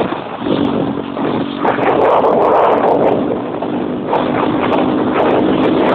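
A minibus engine running close by, a steady hum under a loud rough noise that swells and eases.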